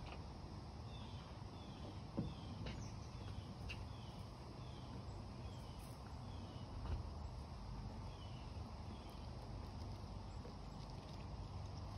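Outdoor ambience with a steady low rumble and a repeated high chirping call, about two short falling notes a second, that stops about nine seconds in. A few faint clicks.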